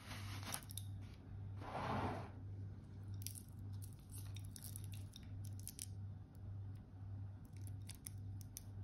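Stainless steel watch bracelet being handled: a brief rustle of its clear plastic protective wrap, loudest about two seconds in, then a run of light metallic clicks and clinks as the links flex and knock together.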